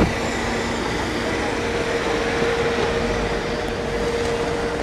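A car running at low speed with a steady hum, and a faint murmur of crowd voices. A short click at the very start.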